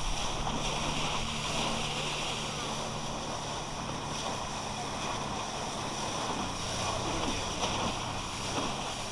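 Motorboat engine running steadily under way, with water rushing past the hull and wind on the microphone. The engine note changes about six seconds in.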